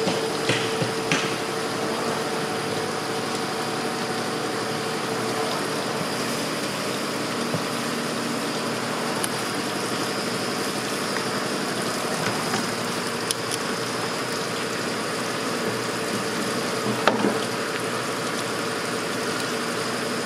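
VincentCorp CP6 screw press running steadily with its cone pressure set to about 50 PSI, squeezing an ethanol-soaked hemp slurry: a continuous machine hum. A steady tone in it stops about five seconds in, and a few brief knocks sound, the loudest about 17 seconds in.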